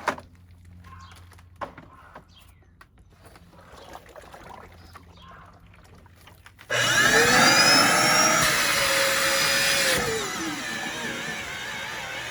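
Faint clicks and handling knocks, then about seven seconds in a Dyson vacuum cleaner is switched on: its motor spins up with a rising whine and runs loud. About three seconds later the whine falls in pitch and the sound drops to a lower steady level.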